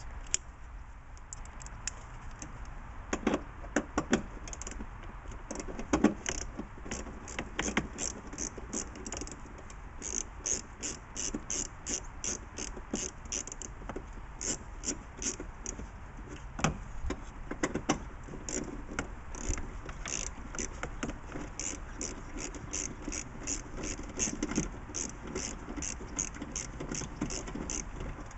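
Ratchet wrench clicking in quick runs of about three clicks a second as small bolts are backed out, with a few louder knocks of tool on metal.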